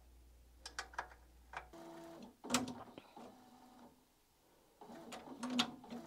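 Prusa XL 3D printer's stepper motors whining faintly through a few short moves, with light clicks between them, as the printer runs its tool-dock calibration parking test.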